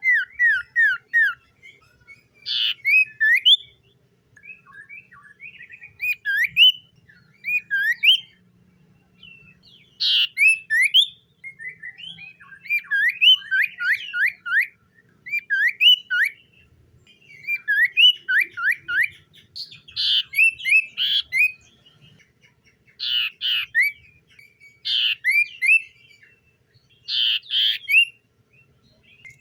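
Common iora singing: repeated bouts of quick whistled notes that sweep up and down, mixed with short harsh notes, one bout every second or two.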